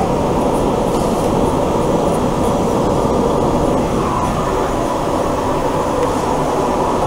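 Lima Metro Line 1 AnsaldoBreda train running, heard from inside a passenger car: a steady, loud rumble with a faint steady whine.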